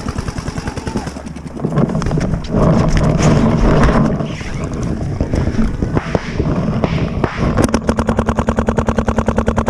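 Paintball marker firing rapidly, a fast even stream of about a dozen shots a second, starting about eight seconds in. Before that there are scattered shots from around the field and a stretch of bumping and rubbing as the marker and its barrel camera are moved.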